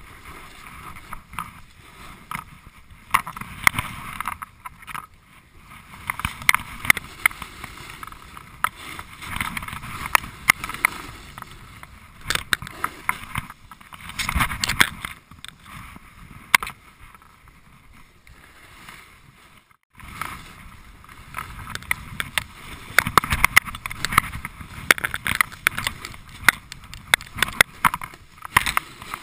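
Snowboard edge scraping and hissing over packed snow, swelling and fading with each turn, with frequent sharp clicks and knocks. The sound cuts out briefly about twenty seconds in.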